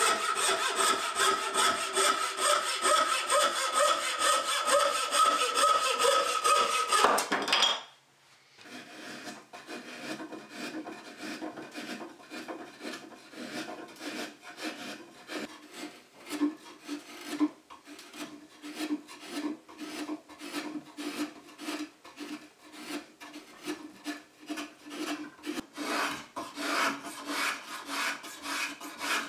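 Bow saw cutting across a tulip poplar tenon in fast, even strokes, the blade ringing, which stops abruptly about 7 seconds in. Then a rasp working the curved edge of a poplar board in steady rubbing strokes, growing louder near the end as shaving strokes with a two-handled edge tool take over.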